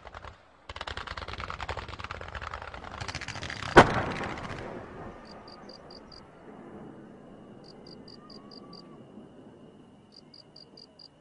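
A fireworks display crackling rapidly, with one loud bang about four seconds in, after which the crackle dies away. In the quieter second half, high chirps come in quick runs of four or five over a faint steady high whine.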